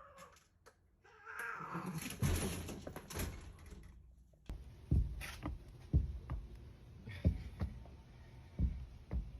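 A cat meowing, then after a break a run of sharp low thumps, about one or two a second.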